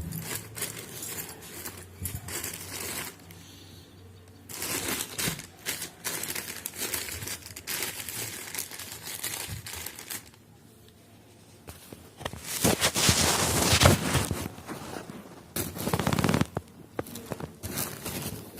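Packaging being handled and opened: irregular crinkling and crackling of plastic wrapping with occasional tearing, loudest in two spells in the second half, with a short lull just before.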